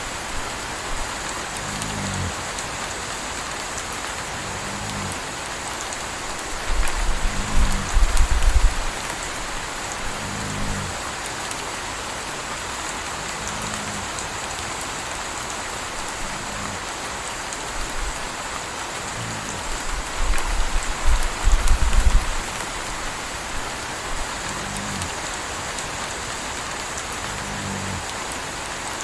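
Steady rain with a puppy snoring, a short low snore about every three seconds. Twice a louder low rumble lasts a second or two.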